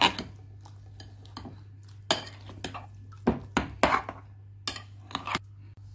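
Metal spoon clinking and scraping against a glass bowl while stirring beaten eggs with chopped vegetables and spices, in irregular clinks that come thicker in the second half.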